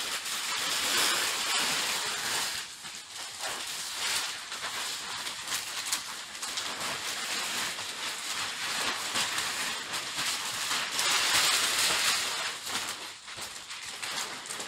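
Large plastic PICS bag liners rustling and crinkling as they are pulled and shaken out, a dense hissing rustle that swells near the start and again toward the end.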